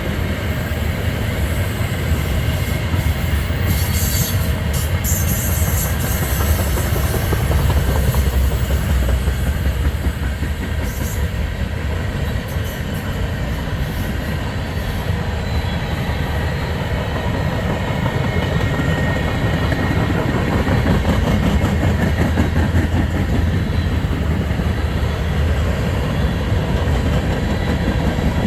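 Freight train cars rolling past on the rails, a steady loud rumble of wheels on track, with brief sharp high crackles about four seconds in and again around eleven seconds.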